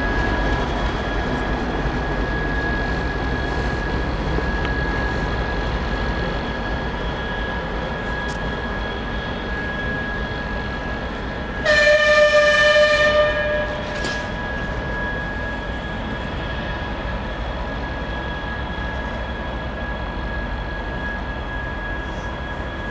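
TEP70BS diesel locomotive running as it pulls away, its V16 diesel engine noise carrying a steady high whine and slowly getting quieter. About halfway through it sounds its horn once, a single pitched blast of about two seconds.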